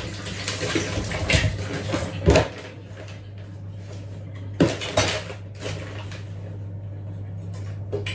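Kitchen pots, pans and utensils being handled during cooking prep, with several clattering knocks, the loudest about two seconds in and two more around five seconds, over a steady low hum.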